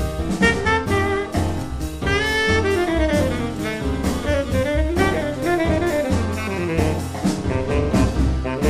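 Instrumental jazz: a horn carries a melody that slides up and down, over bass and drums.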